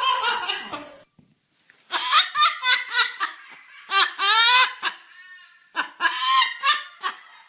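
Ringneck parakeet mimicking a person's uncontrollable laughter: several high-pitched runs of quick "ha-ha-ha" syllables, each about a second long, with short pauses between them.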